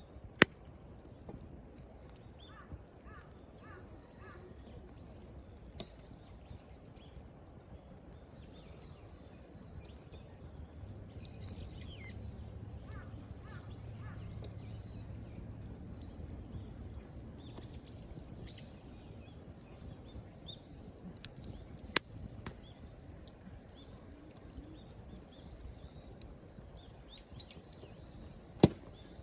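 Firewood burning in a campfire, crackling with a few sharp pops as the wood splits, the loudest near the end. Small birds chirp in the background.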